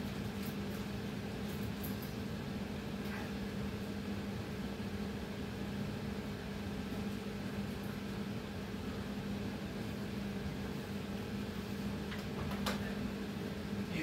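Steady machine hum with a low drone and a fainter higher tone over even hiss, broken only by a couple of faint clicks.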